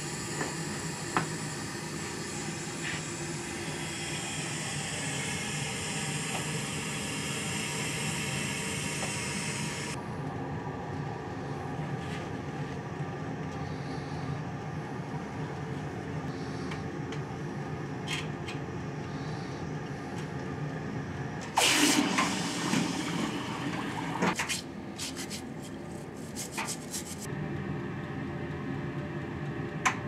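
Vacuum pump of the Fuser500 casting system running with a steady hum, with a strong hiss of drawn air for roughly the first ten seconds that then drops away. About two-thirds through comes a loud rush of water-like noise lasting about three seconds, with a few sharp clicks of handling around it.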